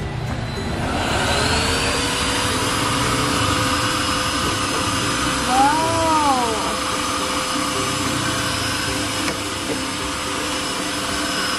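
An Electrolux Well Q6 cordless stick vacuum is switched on about a second in. Its motor whine rises quickly to a steady pitch and runs on evenly. About halfway through, a short rising-and-falling tone sounds briefly over it.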